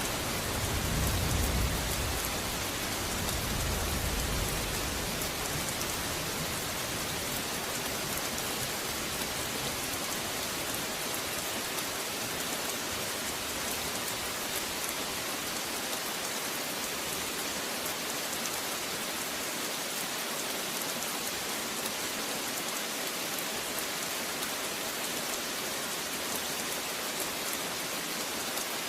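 Steady, heavy rain falling on surfaces, an even hiss throughout. A low rumble of thunder fades out over the first few seconds.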